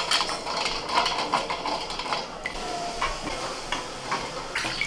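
Water splashing in a steel bowl as boiled eggs are lifted out by hand, with irregular knocks and clinks of eggs and fingers against the steel bowl and plate.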